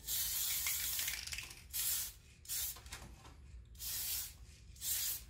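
Aerosol spray-paint can spraying paint into a clear Lexan RC car body: one long hissing blast of about a second and a half, then four short bursts.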